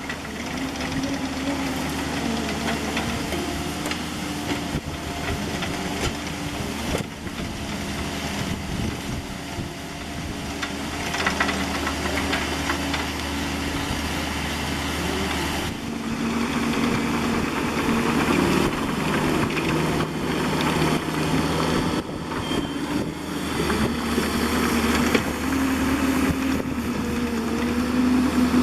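Bobcat E50 mini excavator's diesel engine running throughout, its pitch shifting up and down as the hydraulics take load while it digs and pushes dirt. Scattered short knocks and scrapes come through under the engine.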